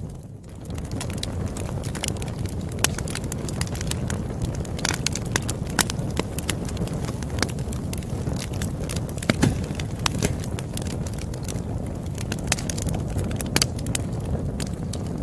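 A campfire burning with a steady low rumble and frequent irregular crackles and sharp pops. It is briefly quieter just after the start.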